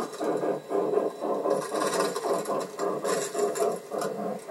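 Large-scale model train passenger cars rolling on garden track, the wheels clicking in a steady rhythm of about three a second. The cars scrape and crunch through a bank of crusty snow beside the rails, and the scraping is strongest twice in the middle.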